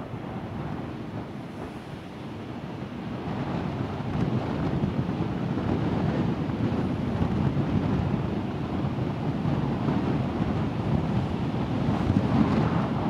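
Wind blowing across the microphone: a low, gusty rushing noise that grows louder about four seconds in.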